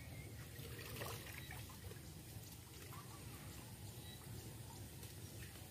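Faint trickling and splashing of water over a steady low rumble.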